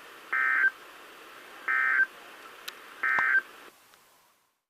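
Emergency Alert System end-of-message signal: three short bursts of SAME digital data tones, each a warbling two-tone burst about a third of a second long, a little over a second apart, marking the end of the broadcast severe thunderstorm warning.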